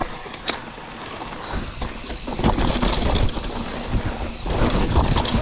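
Downhill mountain bike rolling over a dirt forest trail, heard from a handlebar camera: tyre noise on the dirt with constant knocks and rattles from the bike over bumps, and wind on the microphone. It gets louder about a second and a half in.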